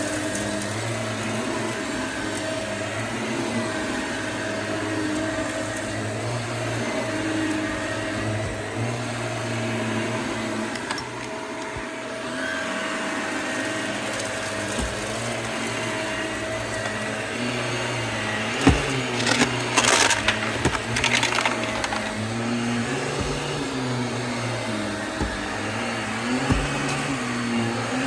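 Vacuum cleaner running steadily over carpet, sucking up crunchy debris that crackles and rattles through the machine, with a burst of loud crackles about two-thirds of the way through.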